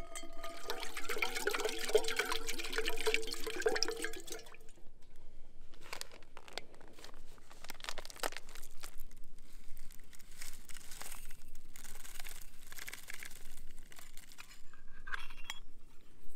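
Water poured from a metal canteen into an enamel percolator coffee pot, splashing and glugging for the first four seconds or so. After that, quieter rustling and light metal clicks as the coffee bag and percolator parts are handled.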